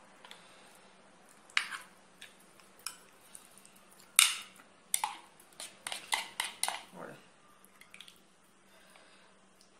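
A metal spoon scraping and tapping against a plastic mixing bowl and a ceramic baking dish while a thick cream sauce is spooned over potatoes: scattered short clicks and scrapes, the sharpest about four seconds in, then a quick run of them between about five and seven seconds.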